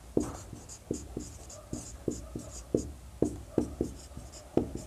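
Marker pen writing on a whiteboard: an irregular run of short strokes and taps, about three a second, with a faint squeak.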